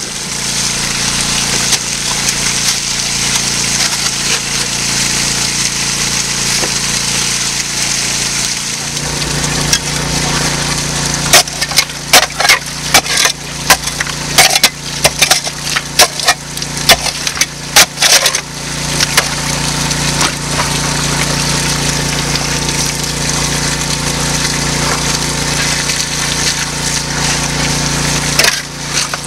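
A highbanker's small gas-engine water pump running steadily over rushing water, its note growing louder about a third of the way in. Midway comes a run of sharp, clattering knocks of rocks and gravel striking the highbanker's metal hopper.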